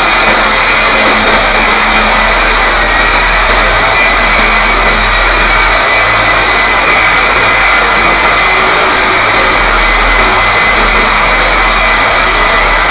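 DongCheng DZZ190 electric core drill running steadily under load, its core bit grinding into masonry, with a high whine over a low hum.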